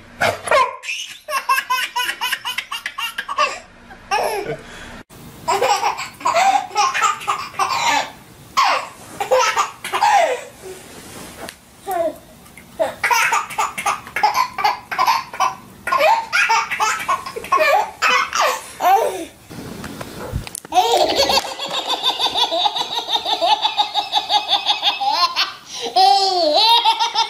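Babies laughing out loud in long runs of quick, repeated belly laughs, with breaks between clips.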